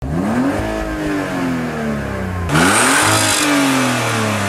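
Car engine revved twice: each time the pitch climbs quickly, then falls away slowly as the revs drop. The second rev comes about two and a half seconds in and is louder, with more exhaust hiss.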